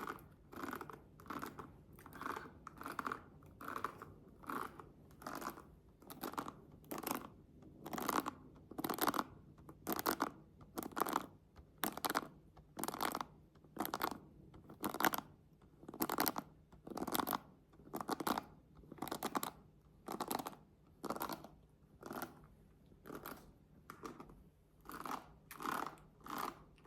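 Hairbrush bristles brushed in slow, even strokes, about one scratchy stroke a second.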